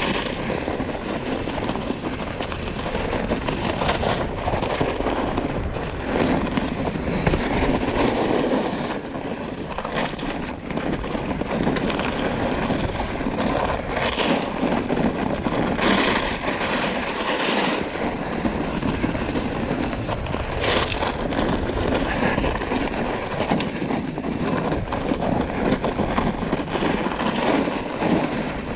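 Trek Slash full-suspension mountain bike riding fast downhill. Wind rushes over the action-camera microphone, and the tyres and frame keep up a constant rumble and rattle over snow and dirt, broken by frequent short knocks from bumps.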